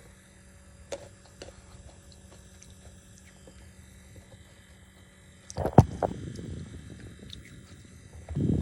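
Close-up mouth eating sounds: a few faint clicks, then about five and a half seconds in a sharp clack followed by noisy chewing, which gets louder again near the end.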